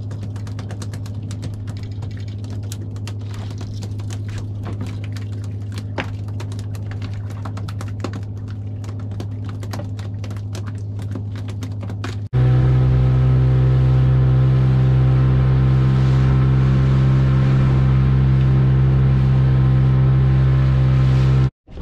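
Boat engine running steadily, with scattered light clicks and taps over it. About twelve seconds in the sound cuts abruptly to a louder, slightly higher steady engine note, which breaks off suddenly near the end.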